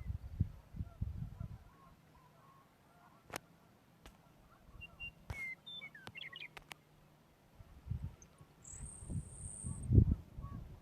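Western meadowlark singing from the field: a short phrase of quick, clear notes about six seconds in, among a few sharp clicks. Low thumps on the microphone at the start and again near the end, the loudest just before the end.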